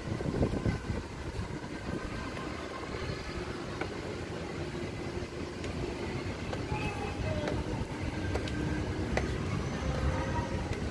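Steady low outdoor rumble at a high open-air deck, with faint distant voices now and then.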